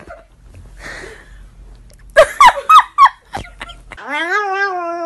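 A few short, loud bursts of a person's voice. Then, about four seconds in, a chihuahua starts a long, steady whine held on one pitch.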